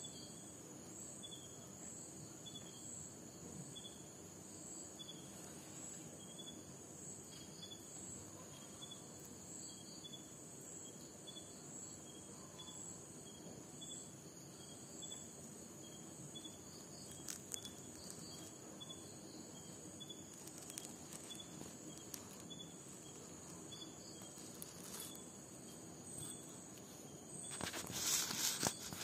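Faint insect chirping: a steady high trill with a short chirp repeating about once a second, typical of crickets. Near the end a brief, louder burst of rustling noise.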